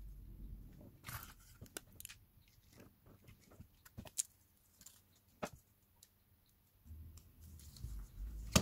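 Hands handling a smartphone's replacement screen and frame: scattered small clicks and taps of fingers and plastic parts, with low handling bumps at the start and again near the end.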